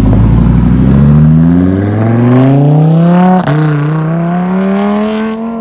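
Lamborghini Huracán's V10 engine accelerating hard as the car pulls away: the pitch climbs, drops at an upshift about three and a half seconds in, then climbs again.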